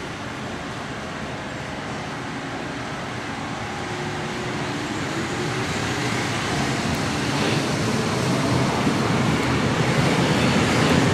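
DT1 U-Bahn metro train pulling out of a station and accelerating away. Its running noise grows steadily louder, with a low hum rising in pitch as it gathers speed.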